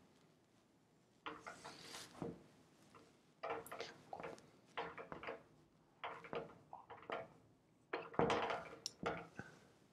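Dry-erase marker scratching and squeaking on a whiteboard in a series of short, faint strokes, starting about a second in: a line being drawn, then letters being written.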